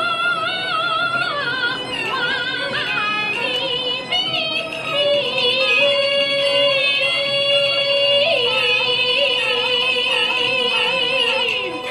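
A high female voice singing Chinese opera in long, wavering held notes and ornamented runs, over instrumental accompaniment.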